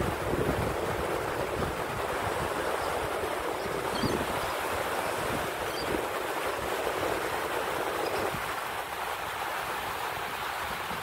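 Small surf washing steadily onto a sandy beach, with wind gusting over the microphone.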